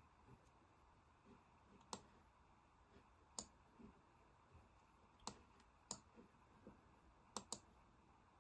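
Faint, isolated clicks at a computer over quiet room tone: six in all, one to two seconds apart, with a quick pair near the end.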